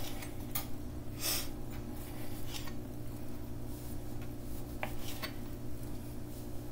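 Kitchen knife cutting grape tomatoes in half on a cutting board: a few irregular soft cuts and taps of the blade on the board, over a steady low hum.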